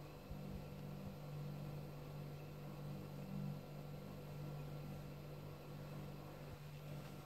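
A steady low hum over a faint hiss, unchanging throughout.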